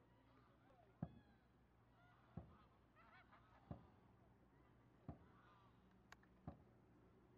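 Dragon boat paddles striking the water in unison, five knocks evenly spaced about a second and a half apart. Faint goose honks sound in between.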